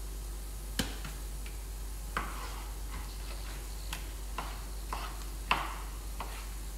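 Chef's knife cutting raw chicken breast on a plastic chopping board: irregular knocks of the blade striking the board, about seven of them, over a steady low hum.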